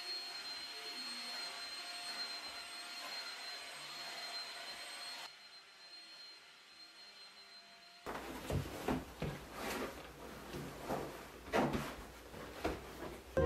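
Handheld vacuum cleaner running with a steady high whine, switching off about five seconds in. Then come soft irregular thumps and rustles as couch cushions and pillows are handled and set back in place.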